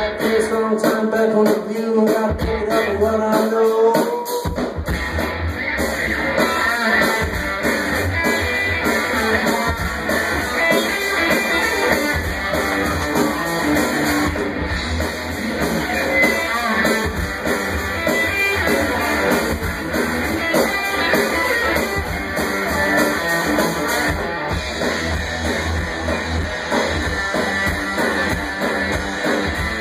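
A live rock band playing: electric guitar with bass and drums, which come in about four seconds in and keep a steady beat.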